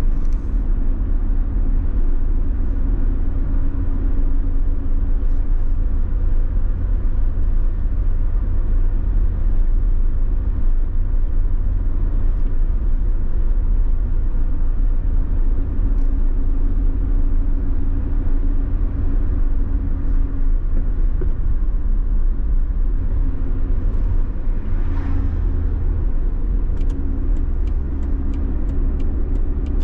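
Car driving along a road: steady engine and road rumble. Near the end comes a run of quick, even ticks, about three a second.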